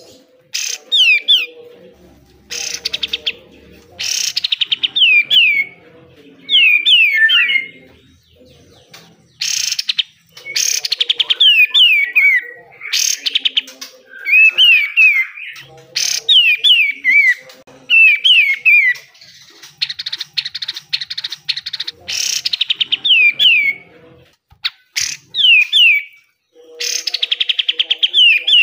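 Kapas tembak bulbul singing hard, phrase after phrase: each phrase opens with a fast, harsh rattling burst (the 'besetan') and runs into a few quick, falling whistled notes.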